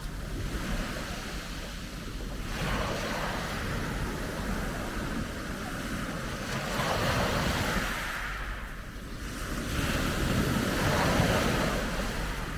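Sea waves breaking and washing on the shore, the rush swelling three times about four seconds apart, with wind rumbling on the microphone.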